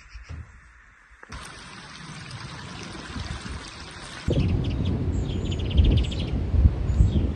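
Birds chirping and trilling outdoors over steady rushing background noise. The noise changes abruptly about a second in and again past the halfway point, where it turns to a louder low rumble with quick repeated bird trills.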